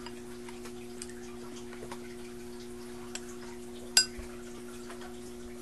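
A spoon clicking against a plastic ice cream cup: a few faint taps and one sharp click about four seconds in, over a steady low hum.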